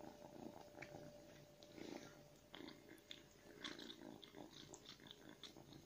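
A tabby kitten chewing: faint, irregular crunching clicks, several a second, getting busier about two and a half seconds in.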